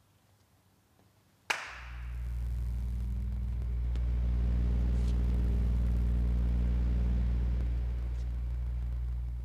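A single sharp clap, then the Wind 3.0 kinetic wall's mechanism setting its hundreds of fibers moving with a steady low hum. The hum swells, holds for about eight seconds and begins to fade near the end.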